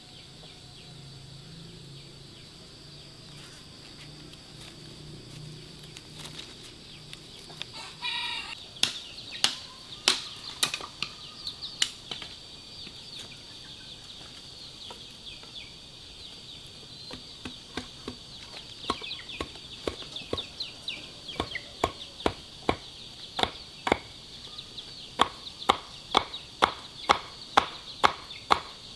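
Sharp, repeated knocks, as of chopping, start about eight seconds in and settle into a steady beat of about two a second over the second half, over a steady high-pitched hiss. A brief call, typical of farm fowl, sounds about eight seconds in.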